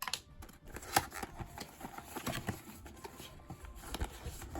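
Blind-box packaging being handled and opened by hand: scattered light taps, clicks and rustles, with a sharper click about a second in.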